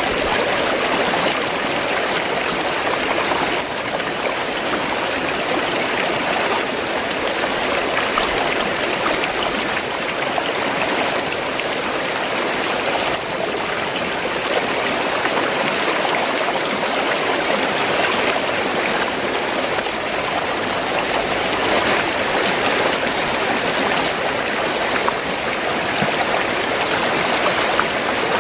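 Fast-flowing stream water rushing and gurgling steadily.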